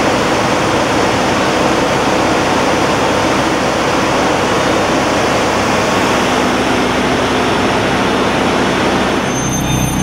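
Fire truck running at the fireground, a loud steady rushing noise from its engine and pump. About nine seconds in it gives way to a lower hum with short, high, repeating beeps.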